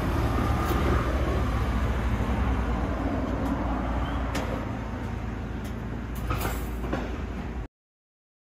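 Outdoor city ambience with a steady low rumble and a few faint clicks, cutting off abruptly to silence near the end.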